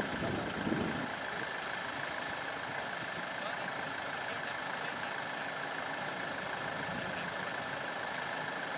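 Steady rush of motorway traffic passing at a distance.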